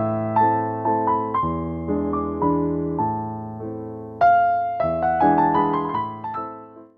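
Piano music playing slow broken chords, with a stronger chord about four seconds in, dying away at the end.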